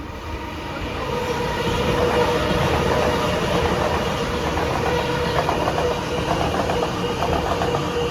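A train passing, its sound building over the first two seconds and then holding, with a steady whine and a quick run of clicks from the wheels over rail joints in the later seconds.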